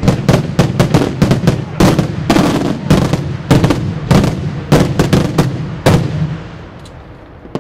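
Daytime fireworks: a rapid volley of aerial shells bursting in sharp bangs, about three a second, over a continuous low rumble. The volley stops about six seconds in and leaves a fading rumble.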